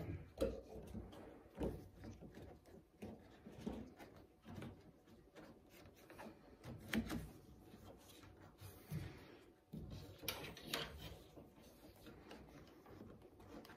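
Rubber weatherstripping being pushed and worked into a car's roof rail channel: faint rubbing with scattered soft clicks and knocks.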